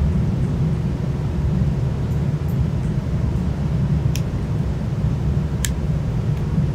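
Steady low rumble of a building ventilation system running, with a couple of faint clicks about four and five and a half seconds in.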